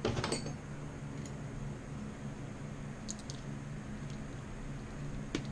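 Handling noises while working on the bike: a brief rustle at the start, then a few small clicks and taps, over a steady low hum.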